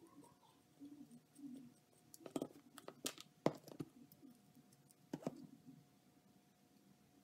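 Several faint, sharp clicks and taps from small tools and parts being handled on a workbench: a screwdriver, small motor screws and a tube of thread-locker. A faint steady hum runs underneath.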